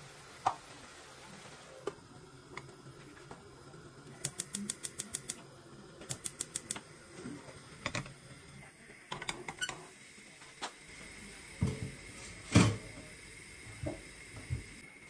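Rapid ticking of a gas hob's spark igniter, in two short runs about a second apart. Then steel and aluminium pans clank on the hob grates as they are shifted, with a lid knocking; the loudest clank comes a few seconds before the end.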